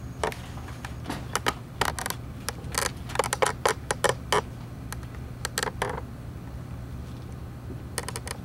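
Quick small plastic clicks and rattles, packed into the first six seconds with a few more near the end, from a syringe being worked at a Foley catheter's balloon port to test-inflate the balloon before insertion. A steady low hum runs underneath.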